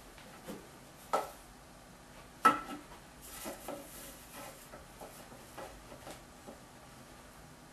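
Knocks and clatters of a small toy block and cardboard tubes being handled on a tube-and-box apparatus. There is a sharp knock about a second in and a louder one about two and a half seconds in, then a string of lighter taps.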